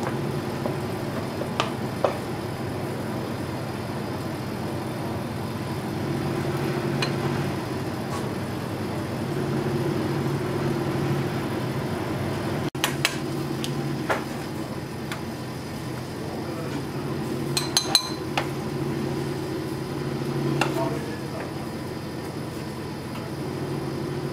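Restaurant kitchen ambience: a steady low hum that swells and fades, with scattered clinks and knocks of dishes and utensils and a quick cluster of sharper clinks about eighteen seconds in.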